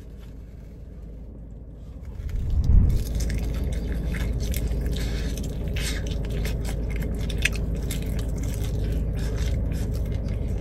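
Close-up mouth sounds of a person eating a bone-in garlic parmesan chicken wing: biting, chewing and wet smacking in quick irregular clicks. A low thump about two and a half seconds in is the loudest sound, before the eating starts in earnest.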